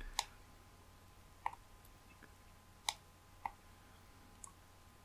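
Four or five faint, sharp clicks at uneven spacing from someone working a computer, over a faint steady electrical hum.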